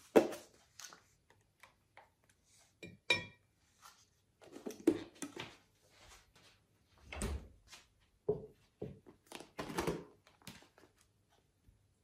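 Crockery and food containers being handled on a table: a series of separate knocks, clinks and rustles, with a deeper thud as a heavy ceramic baking dish is set down, and a plastic container lid being pulled off.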